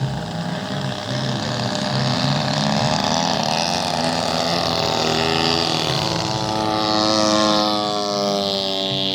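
Engine of a radio-controlled model airplane running as it flies past, its pitch sliding down over the last few seconds.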